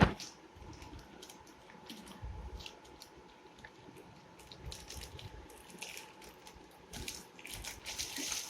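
A toy box and its packaging being opened by hand: a knock at the start, then scattered crackling, clicking and rustling of cardboard and plastic, busier near the end.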